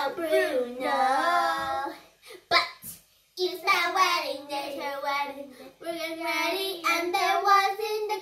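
A child singing without clear words, holding long wavering notes, with a short break about two and a half seconds in where a couple of clicks are heard.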